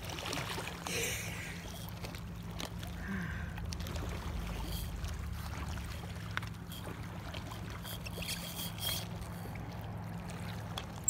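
Small waves lapping at a rocky lakeshore under a steady low hum, with scattered knocks and rubbing from a handheld phone.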